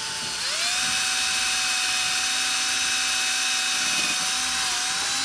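Milwaukee cordless drill boring a pilot hole into a wooden handrail return. The motor whines steadily, speeds up about half a second in, then holds a higher, even pitch.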